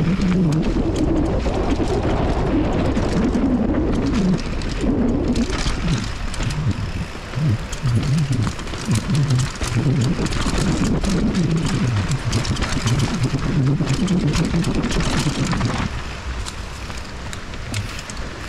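Mountain bike riding down a rocky dirt trail: knobby tyres crunching over dirt and stones, with many sharp rattles and clacks from the bike over bumps and a steady low rumble. It eases to a quieter stretch near the end.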